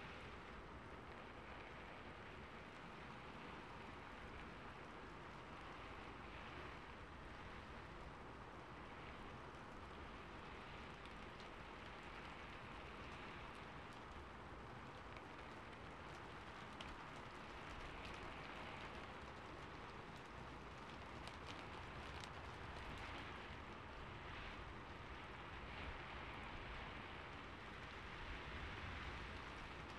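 Steady rain falling, an even hiss with a few separate drop ticks standing out in the middle stretch.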